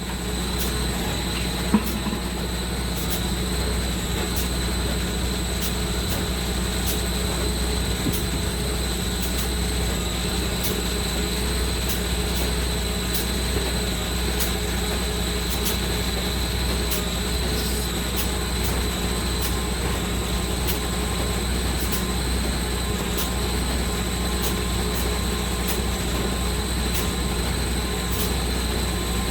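A machine running steadily: a low, unchanging drone with faint ticks at an even pace of about one a second.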